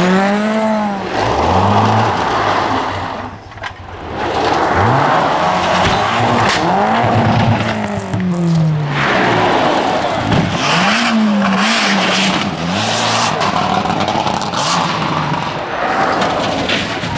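Rally car engines revving hard, the pitch climbing and dropping with each gear change and lift, over tyre and gravel noise as the cars pass at speed. There is a brief lull about three and a half seconds in, and a few short sharp cracks.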